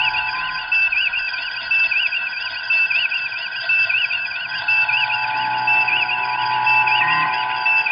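Science-fiction electronic sound effect: a steady bed of layered synthetic tones with a short beep and warbling chirp repeating about once a second.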